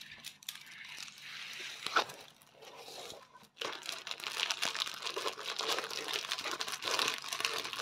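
Packaging crinkling as it is handled, irregular and crackly, with a sharp click about two seconds in and busier crinkling from about three and a half seconds in.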